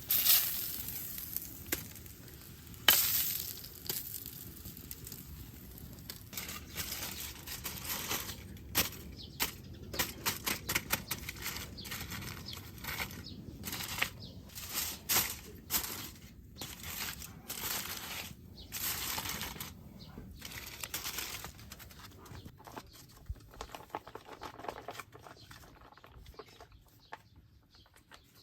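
Irregular rustling and crinkling with many short sharp clicks, like things being handled, louder at the start and about three seconds in.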